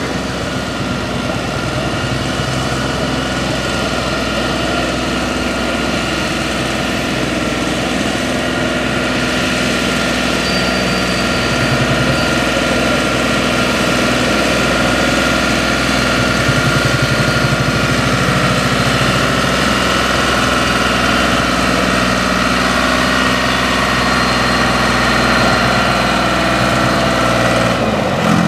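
Aster 60 tractor's engine running steadily under load as it pulls a weighted tractor-pulling sled, getting slightly louder about halfway through.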